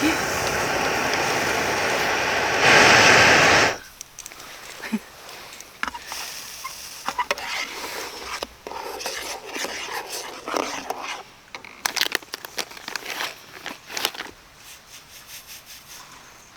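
A loud steady rushing noise that swells and then cuts off sharply about four seconds in. It is followed by firewood crackling and popping in a campfire, with irregular sharp snaps.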